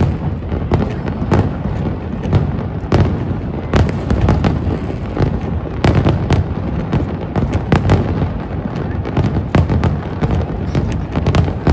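Aerial fireworks going off continuously, sharp bangs and crackles several times a second over a dense, rolling rumble of overlapping bursts.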